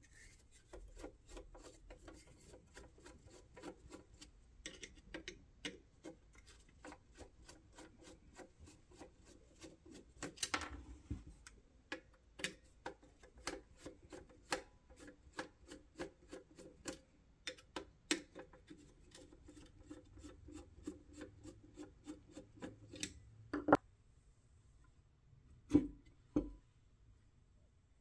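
Screwdriver turning the brass screws in a 1960s Duncan parking meter's metal housing: a long run of small clicks and rubbing, a few clicks a second. Near the end come a few louder single knocks.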